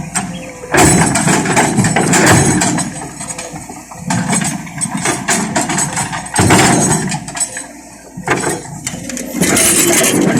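Excavator at work: the engine runs under repeated bursts of loud scraping and clattering noise with sharp knocks.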